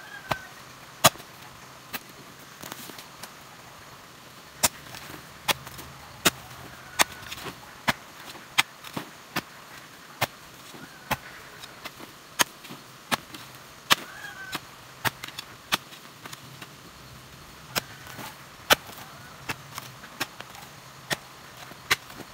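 Long-handled metal hoe chopping into stony red soil, sharp strikes at irregular intervals of about a second, with softer scrapes as loosened earth is dragged.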